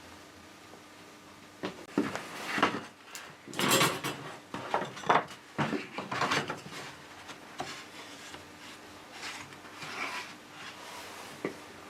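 Things being handled on a workbench: an irregular series of knocks, clicks and short scrapes, busiest a few seconds in, then a last click near the end.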